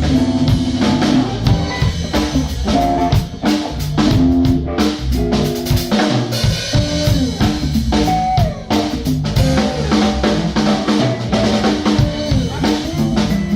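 Music: a band with drum kit, guitar and bass playing a steady beat, with rimshots on the snare.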